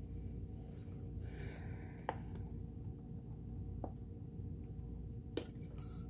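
Fingers handling and turning the exposed underside mechanism of a Kenmore 158 sewing machine to work fresh grease into the gears: a soft rustle about a second in and three light clicks, the sharpest just after five seconds, over a steady low hum.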